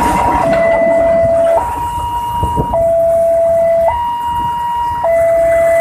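Railway level-crossing warning siren sounding a two-tone electronic alarm that switches between a lower and a higher pitch about once a second. The rumble of the passing tank-wagon freight train fades out about half a second in.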